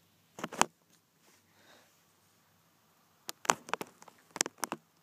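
Sharp clicks and knocks of small plastic parts being handled: a pair about half a second in, then a quick run of them from about three and a half to five seconds in.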